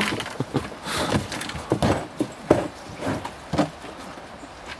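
A landed salmon flapping against the floor of a small boat, giving a series of irregular knocks and thumps, the loudest about halfway through.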